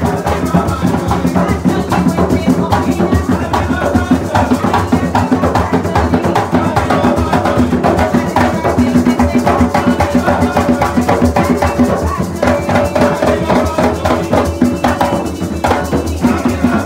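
Live Puerto Rican bomba: several barrel drums (barriles de bomba) hand-played in a fast, steady rhythm, with a shaken rattle among them.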